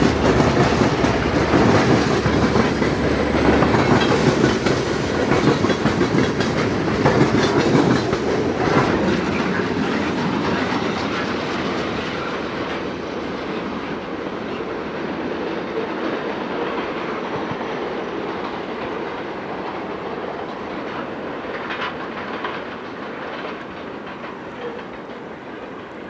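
Train cars rolling past, wheels clicking over the rail joints, loud at first and then gradually fading as the train moves away.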